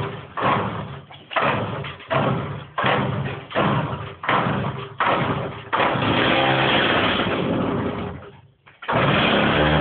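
Stihl two-stroke saw being pull-started: a run of quick pulls, each a short burst, before the engine catches about six seconds in and runs steadily. It dies away briefly near the end, then runs again.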